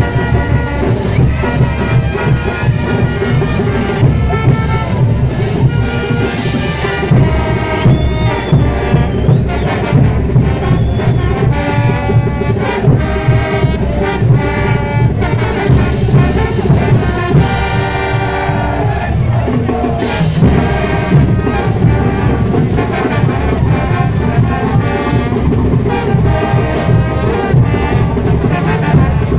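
Brass band playing carnival music in the street: trumpets, trombones and sousaphones playing together over a steady beat.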